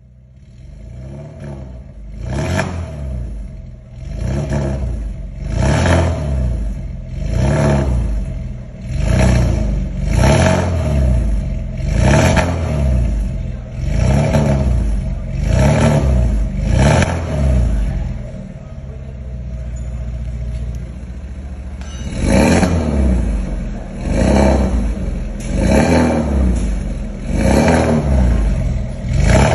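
BMW E90 320i's four-cylinder engine revved over and over at standstill through an aftermarket quad-tip exhaust. Quick blips, each rising and falling, come about every one and a half to two seconds. Around two-thirds through there is a few seconds of steadier running before the blips start again.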